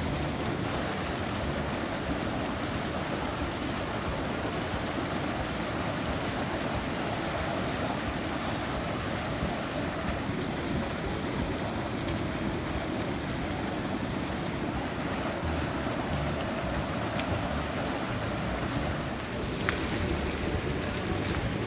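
Steady rushing, churning water from a pool's bubble jets, with one short click near the end.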